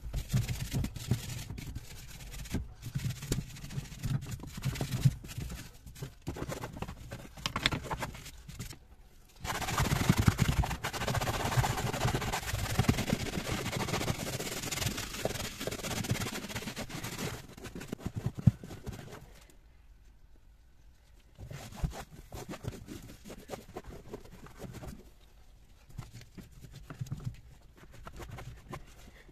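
A brush scrubbing foamy cleaner into a textured rubber floor covering and the pedals, a wet rasping scrub. It is heaviest and most continuous for about eight seconds in the middle, pauses briefly, then goes on more lightly.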